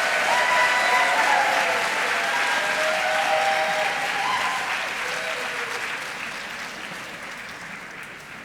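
Audience applauding, with a few held voices calling out over the clapping in the first half; the applause fades away gradually over the last few seconds.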